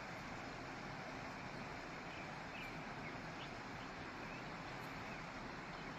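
Water flowing down in a steady, unbroken rush.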